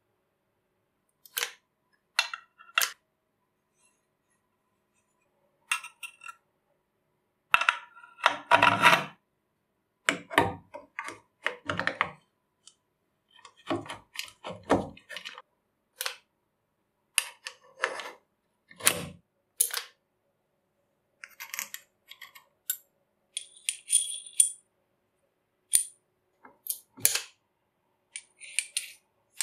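Steel parts of an antique hand-cranked hammer drill being handled and fitted into its cast aluminium housing: a string of separate metal clinks, clicks and short scrapes with silences between, a few ringing briefly.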